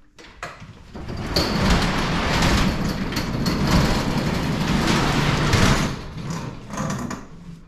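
A loud rolling, rattling mechanical noise that starts about a second in, holds for about five seconds and then dies away.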